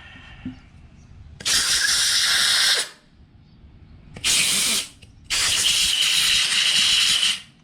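Compressed air hissing from a blow gun in three bursts, a short one between two longer ones, blowing cleaned hydraulic lifter parts dry.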